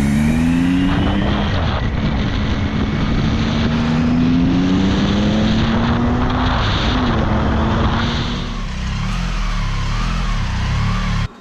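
Motorcycle engine running under way, its pitch climbing slowly as it accelerates, then falling back about seven seconds in. The sound cuts off abruptly just before the end.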